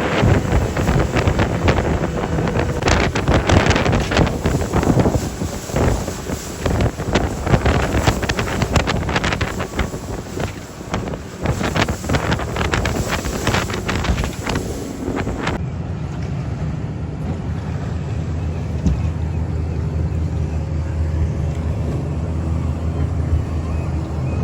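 Heavy wind buffeting and crackling on the microphone over a running boat motor; about fifteen seconds in it changes suddenly to a steadier low motor drone with far less wind.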